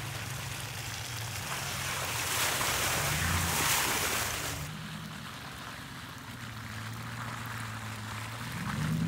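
Ram 1500 Rebel's 5.7 L HEMI V8 running as the pickup drives close past through wet mud, its tyres hissing and splashing, loudest about three and a half seconds in, then cut off. A second pickup's engine follows, running low at first and rising as it pulls forward near the end.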